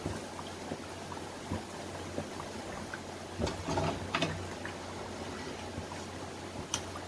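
Pinwheel samosas deep-frying in hot oil in a wok: a steady sizzle of bubbling oil. A few sharp clicks and knocks about halfway through and one near the end as a wire spider skimmer scoops the fried pinwheels out.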